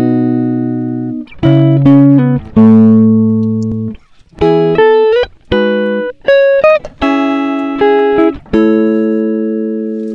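Background music: a plucked guitar playing chords and single notes, each struck sharply and left to ring out and fade.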